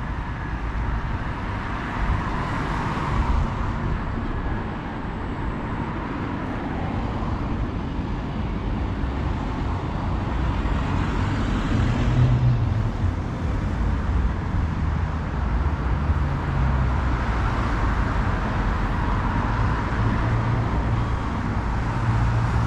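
Road traffic, with cars passing one after another and swelling and fading a few times, over a low, gusting rumble of wind on the microphone.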